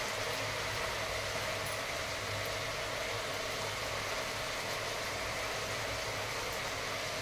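Chicken pieces cooking in a steel pan on a gas stove, with a steady hiss and an even low hum, as they are stirred with a silicone spatula; a couple of faint ticks of the spatula against the pan.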